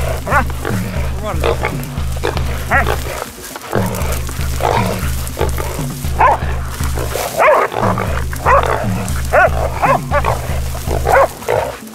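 Wild boar squealing and dogs barking in repeated short calls, over background music with a steady beat.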